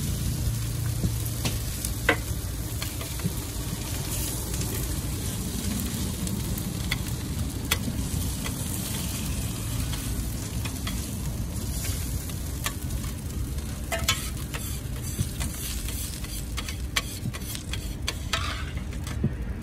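Beef burger patties sizzling on a steel flat-top griddle, with scattered clicks and knocks of a metal masher and spatula against the plate. Near the end, a scraper grates across the steel.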